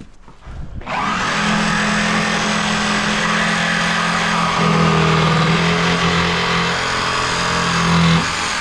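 A motor starts up about a second in and runs loud and steady with a constant low hum, then drops away shortly before the end.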